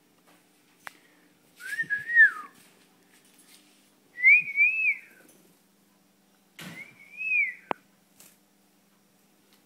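Three short whistled phrases a couple of seconds apart, each a wavering up-and-down tune, with a sharp click at the end of the last.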